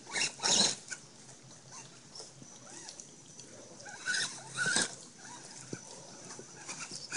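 Axial Wraith RC crawler's electric drivetrain squealing in short bursts as it crawls slowly over rocks, the loudest bursts near the start and about four seconds in, over a faint steady high whine.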